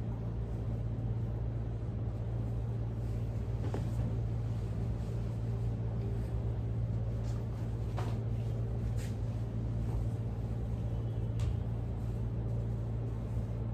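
Steady low-pitched hum with a few faint, short clicks here and there.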